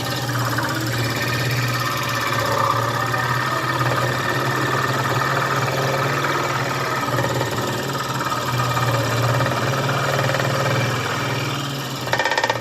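A power saw with a fast reciprocating blade cuts pine wood with a steady, rapid buzz. It changes briefly near the end.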